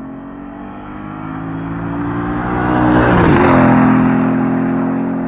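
Lexus IS F V8 with an X-Force cat-back exhaust, driven past under acceleration. The note climbs as the car approaches, is loudest with a drop in pitch about three seconds in as it passes, then runs on steadily as it pulls away.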